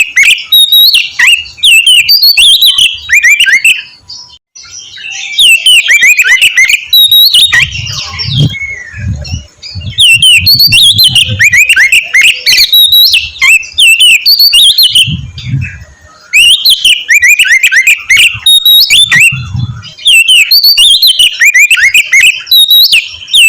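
Oriental magpie-robin (kacer) in full song: loud, fast runs of varied rising and falling whistles and chirps. The song comes in phrases of a few seconds with short pauses between them. A few dull low thumps sound under it about a third and two-thirds of the way through.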